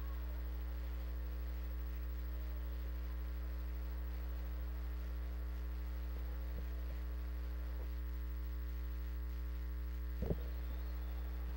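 Steady electrical mains hum on the broadcast audio line, with one brief click about ten seconds in.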